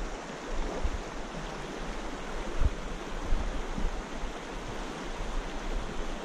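Steady rush of a small creek running high over shallow riffles and rapids. A couple of brief low thumps stand out, about two and a half and three and a half seconds in.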